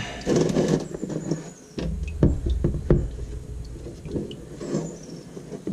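Plastic ZF 8-speed transmission oil pan being worked down past the exhaust and out from under the truck, scraping and clunking against the surrounding parts, with a few sharp knocks about two to three seconds in.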